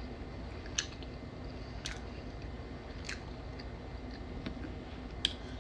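A person chewing food close to the microphone, with a few soft wet mouth clicks, about one a second.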